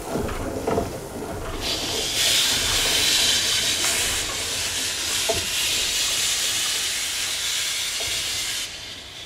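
Steam locomotive letting off steam: a loud, steady hiss starts about a second and a half in and cuts off abruptly near the end. A couple of short knocks come before it.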